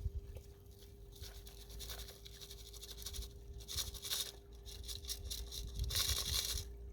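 Dirt and gravel scraping and rustling as prospecting paydirt is handled and sifted, in a few short spells over a faint steady hum.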